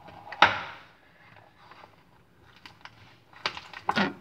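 Homemade glue-and-shaving-cream slime being mixed and squeezed, with one sharp wet squelch about half a second in, then a few softer clicks and small pops, bunching together near the end.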